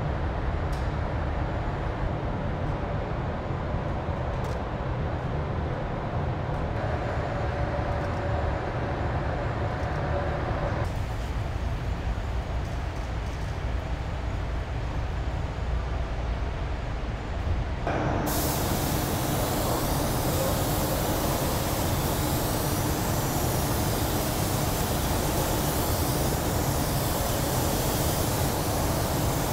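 Steady low machinery rumble of a paint shop. A little past halfway the loud, even hiss of compressed-air spray guns painting a car body sets in and keeps going.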